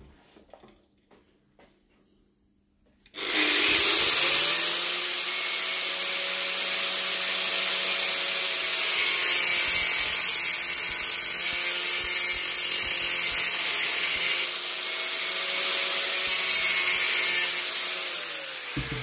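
Small electric power tool cutting through a part with a harsh, hissing grind. Its motor spins up about three seconds in, runs steadily, and winds down near the end.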